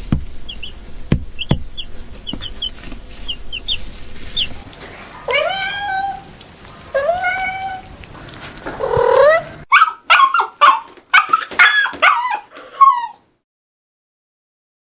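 A dog whimpering in long rising whines, then breaking into a quick run of sharp yips and barks that stops abruptly near the end. The first few seconds hold short high chirps and a few knocks.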